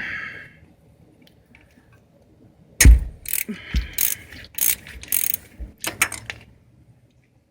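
Hand ratchet with an 8mm socket clicking in a run of short strokes, from about three seconds in to about six and a half seconds, as it works on the hold-down bolt of a transmission speed sensor. A brief sound comes right at the start.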